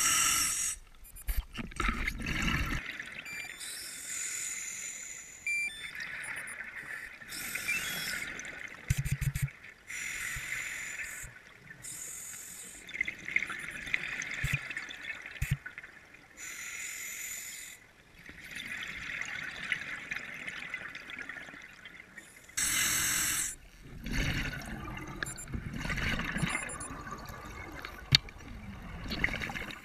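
Scuba regulator breathing heard underwater: hissing inhalations alternating with gurgling rushes of exhaled bubbles, repeating every few seconds.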